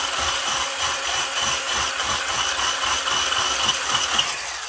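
Corded electric whisk beating an egg mixture in a ceramic bowl: a steady high motor whine with a fast rhythmic rattle of the whisk in the bowl.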